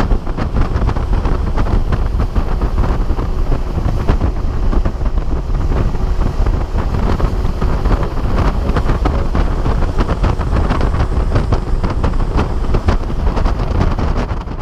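Wind buffeting the microphone of a bass boat running at speed, with the boat's engine and water noise underneath.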